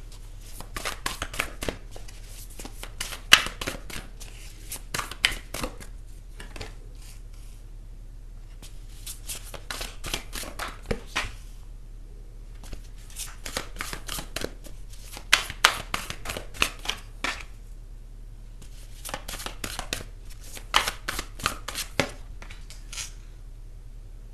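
A deck of tarot cards being shuffled by hand: four bursts of quick, papery clicks with short pauses between them, over a low steady hum.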